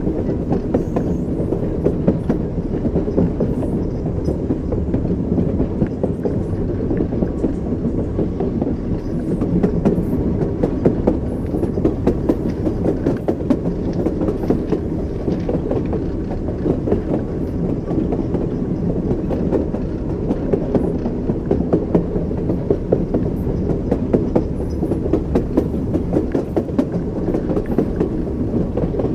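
Train wheels clacking over rail joints, frequent sharp clicks over a steady low rumble of the moving train.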